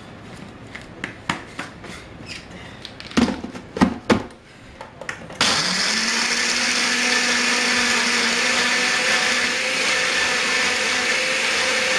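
Countertop blender: a few knocks and clicks as the jar is set on the base, then about five seconds in the motor starts and runs steadily. It is pureeing a wet marinade of garlic, ginger, onion, spices and water.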